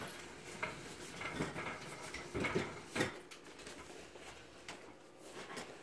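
Irregular light knocks and clatters with some shuffling, the loudest about three seconds in: a chair and other furniture being handled as people move about.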